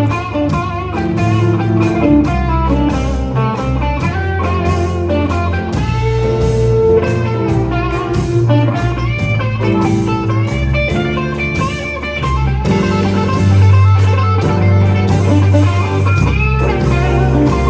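Jazz orchestra playing, with an electric guitar line to the fore over a bass part.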